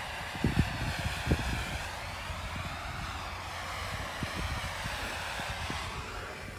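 Steady distant aircraft drone, its tone slowly shifting as it passes, over scattered low thumps.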